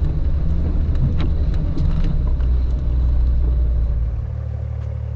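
A 4x4's engine pulling hard through deep snow with a heavy low rumble and scattered ticks, easing off about four seconds in to a steadier, quieter running.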